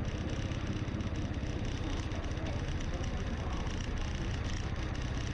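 A vehicle's engine running steadily at an even speed, a constant low rumble with no change in pitch.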